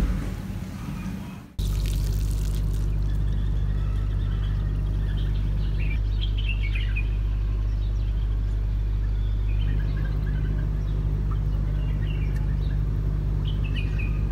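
Rain falling on wet pavement for the first second and a half, then it cuts off suddenly. A steady, loud low mechanical hum follows, like a running engine or machinery, with birds chirping now and then.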